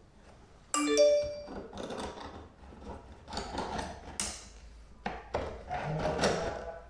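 Flexible cable rods rattling and scraping against the edge of a hole in a chipboard floor as they are worked down into the void, with a short bright ringing tone about a second in.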